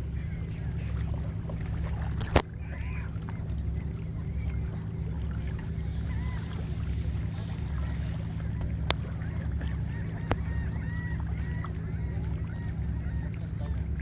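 A flock of waterbirds calling from the water, a run of short rising-and-falling calls that cluster in the second half, over a steady low rumble of wind on the microphone. A sharp click about two seconds in, and two fainter ones later.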